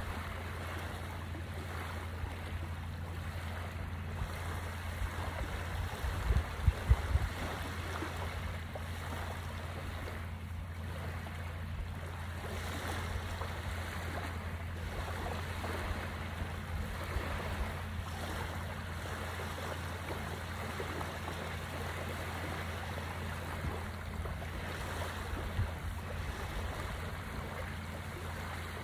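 Small waves washing steadily onto a sandy shore, over a low rumble. A few louder low bumps come about six to seven seconds in.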